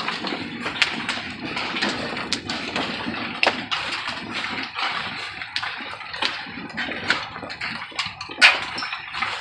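Hailstorm: a dense, steady patter of falling hailstones with irregular sharp clicks of single stones striking close by, one especially loud strike about eight seconds in.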